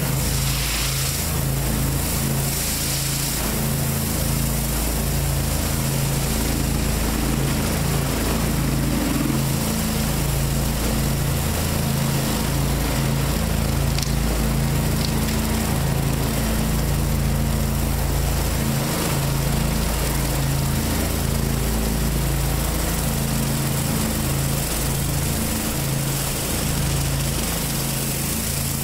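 Pressure washer engine running steadily under load while a large rotary surface cleaner sprays water onto concrete, giving a steady hiss over the engine's hum.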